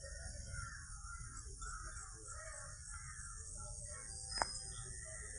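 Outdoor garden ambience: birds calling on and off over a steady high insect-like hiss, with one sharp click a little after four seconds in.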